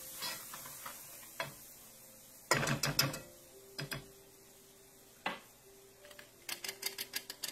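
Flour sifter being worked over a skillet of roux, giving a rapid, even run of ratcheting clicks near the end. Before that, a short clatter of a whisk against the pan about two and a half seconds in, and a few single knocks.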